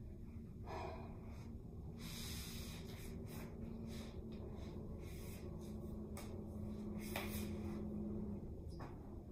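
A woman's breathing during a floor exercise: a series of short, sharp breaths and exhales, about eight of them, over a steady low hum that stops near the end.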